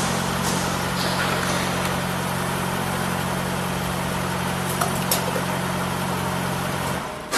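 Scoop feeding machine running, its vibratory bowl feeders giving a steady low hum over a hiss, with two light clicks about five seconds in. The hum cuts off near the end.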